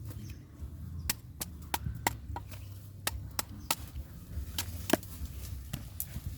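Knife chopping into a coconut's husk to peel it: a string of sharp strikes, about two a second at an uneven pace, the loudest about five seconds in.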